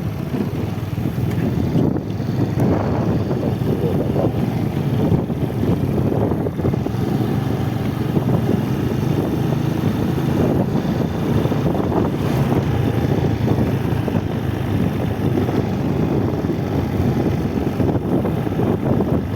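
Motorcycle running steadily at speed, its engine drone mixed with wind rushing over the microphone.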